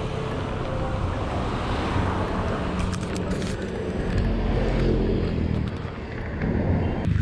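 A motor vehicle engine running nearby as a steady low rumble, a little louder about four seconds in, with a few sharp clicks about three seconds in as fingers handle the camera.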